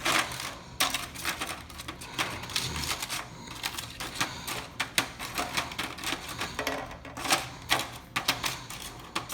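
Vanilla wafer cookies clicking and tapping against a pan as they are laid out flat in a tight layer, in irregular light clicks several times a second.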